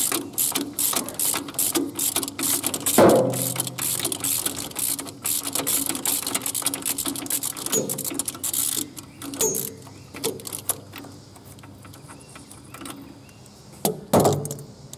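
Socket ratchet clicking rapidly as a loosened manifold nut is run off its stud; the clicking stops about nine seconds in.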